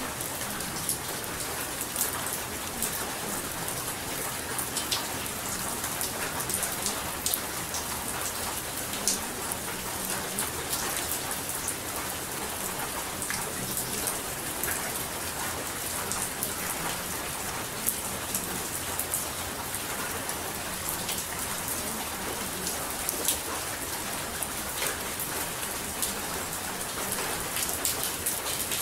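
Steady rain falling, a constant hiss dotted with many small, sharp drop ticks.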